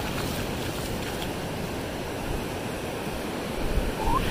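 Sea surf rushing steadily onto the beach, growing louder near the end.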